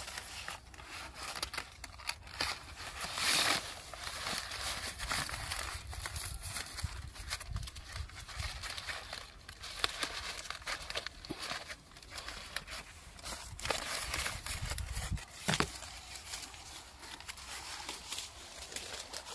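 A fruit-protection bag crinkling and rustling as it is handled by hand, with scattered clicks and crackles.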